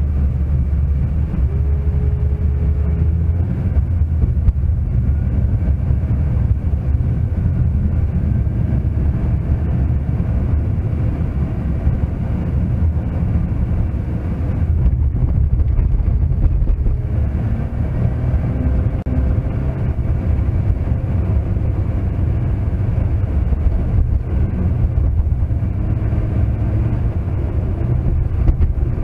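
Car engine and tyre noise heard from inside the cabin through a dashcam: a steady low rumble while driving.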